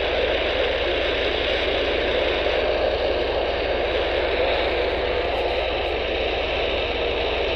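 Steady static hiss from an Intek H-520 Plus handheld CB radio's speaker, receiving on channel 19 AM (27.185 MHz) with no station coming through.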